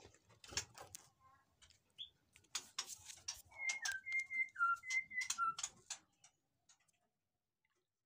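White-rumped shama calling: sharp chipping calls and short clear whistled notes, some stepping down in pitch. It falls silent about six seconds in.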